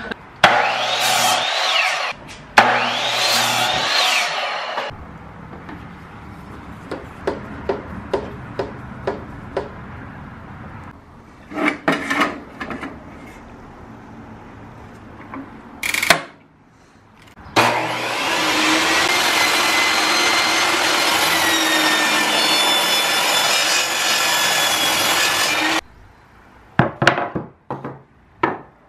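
Ryobi 10-inch table saw cutting pine 2x4 stock. There are two short cuts in the first few seconds, with the blade's whine rising and falling, then knocks and clicks between cuts. Near the end there is one long steady cut of about eight seconds that stops abruptly.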